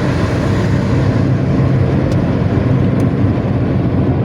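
Intercity bus engine running hard through a 'ngorok' snoring exhaust, a steady deep growl.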